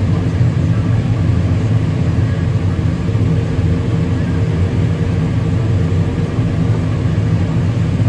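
Combine harvester running steadily while its unloading auger pours shelled corn into a grain cart, heard from inside the cab as an even engine and machinery drone with a hiss of grain over it.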